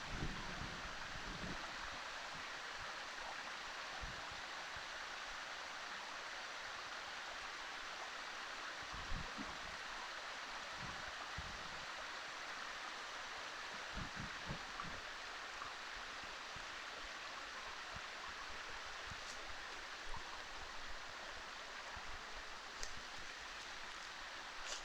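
Steady rushing of running water, with a few dull low thumps scattered through it.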